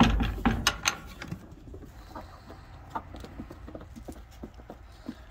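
Chickens pecking at feed on a wood-shaving floor: a steady patter of small, quick pecks and scratches. A few loud knocks and rattles come in the first second.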